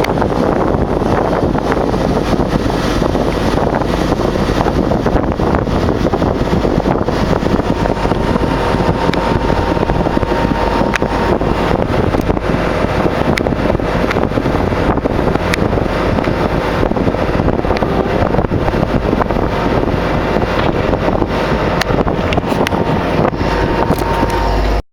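Motorboat under way: a steady engine drone mixed with water rushing past, with wind buffeting the microphone.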